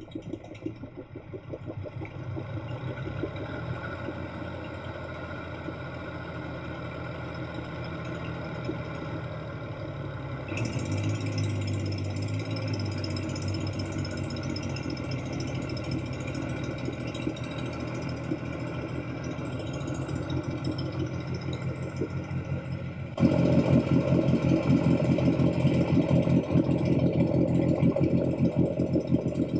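Diesel engine of a Takeuchi mini excavator, stuck in deep pond mud, running steadily. About two-thirds through, the engine noise jumps abruptly louder and rougher as a tractor pulls on the excavator by a tow line and it won't budge.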